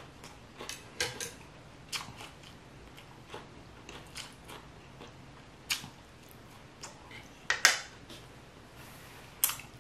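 Close-miked chewing of a mouthful of food, with irregular wet mouth clicks and smacks. One louder smack comes about seven and a half seconds in.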